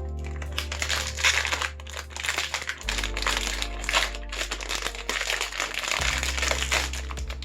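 A plastic blind-box wrapper crinkling continuously as it is handled and opened, a figure being unwrapped by hand. Background music with low held bass notes that shift twice plays underneath.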